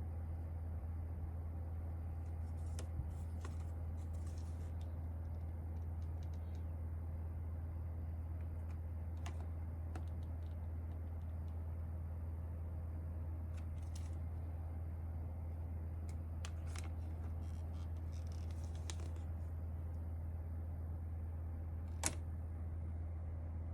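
Light clicks and taps from the parts of an Akko mechanical keyboard being handled, scattered and irregular, the sharpest one near the end, over a steady low hum.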